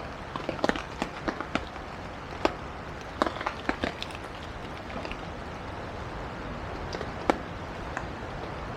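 Wood campfire crackling, with sharp irregular pops, many in the first few seconds and fewer later, over a steady hiss. The fire has been freshly stoked with more logs.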